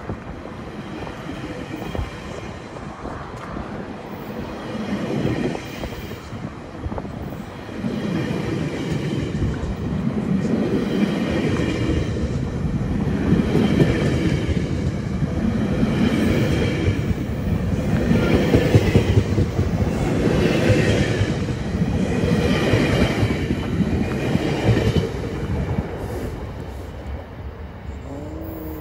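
GO Transit bilevel passenger coaches rolling past close by, with wheel and truck rumble that swells and eases in a regular beat as each car goes by. The sound grows louder through the middle and drops away near the end as the last car clears.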